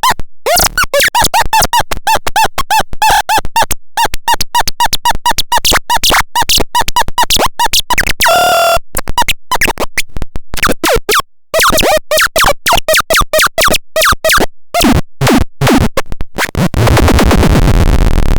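Glitchy electronic synthesizer sounds: rapid chopped tones and short pitch sweeps stuttering on and off many times a second, with one held tone about halfway through and a steady buzzy tone near the end.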